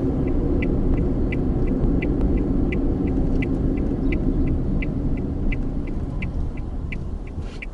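A vehicle's turn-signal indicator ticking steadily, about three clicks a second with alternating stronger and weaker clicks, over the low rumble of the vehicle driving. The rumble fades toward the end.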